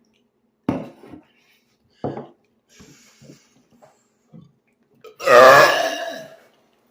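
A man's long, loud belch with a wavering pitch about five seconds in, a deliberate burp brought up after gulping cold soda. A few short throat sounds come before it.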